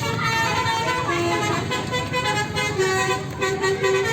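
Bus 'telolet basuri' musical air horn playing a tune: held notes that step from pitch to pitch every half second or so, over the bus's low engine rumble.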